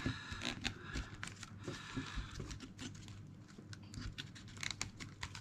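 Faint rustling and small scattered clicks of hands handling a birch bark container and picking at the loose raffia and bark bits around its rim.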